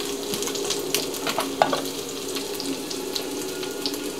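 Vegetables sizzling in a skillet, a steady crackle of small pops, with a few light knocks and a faint steady hum underneath.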